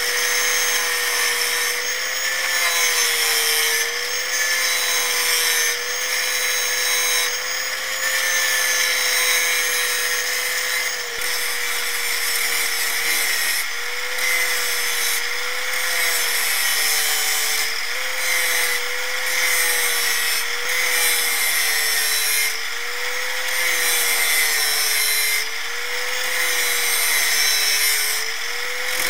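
A grinder's abrasive wheel running at speed and cutting into the thin steel of an old wood saw blade. A steady high motor whine sits over a harsh grinding hiss, and the whine dips slightly in pitch now and then as the wheel bites.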